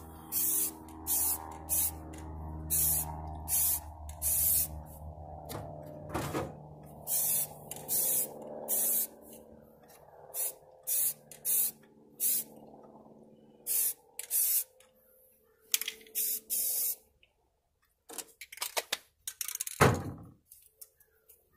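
Aerosol spray can of gray primer spraying in about two dozen short bursts, each a brief hiss. Near the end there is a single louder knock.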